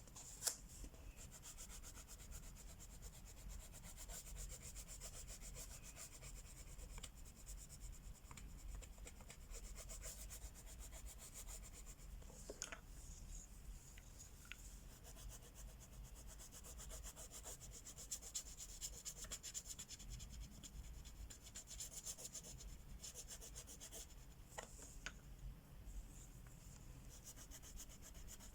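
Wax crayon rubbed back and forth on a coloring book page in fast, steady scratchy strokes, faint, with a few soft clicks.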